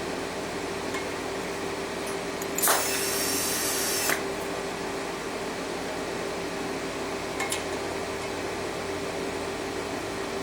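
Argon shielding gas hissing from the welding gas line for about a second and a half, starting nearly three seconds in, as it purges into the canister. A steady hum runs underneath.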